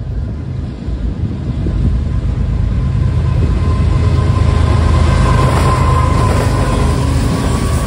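A lash-up of BNSF diesel freight locomotives approaching and passing close by. Their engines' low drone and the rolling noise grow steadily louder to a peak about five to six seconds in.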